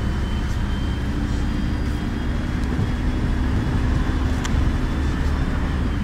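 City bus running in traffic, heard from inside the cabin: a steady low rumble of engine and road noise with a faint steady hum. A single short click about four and a half seconds in.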